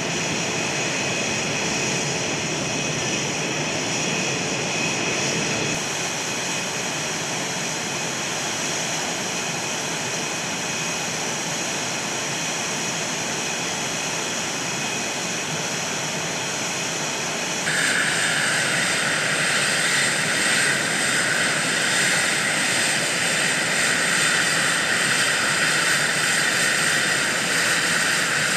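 Twin General Electric F404 jet engines of CF-18 Hornet fighters running on the ground: a steady rushing noise with a high whine over it. The sound changes about six seconds in and again about eighteen seconds in, where it grows louder and the high whine comes forward.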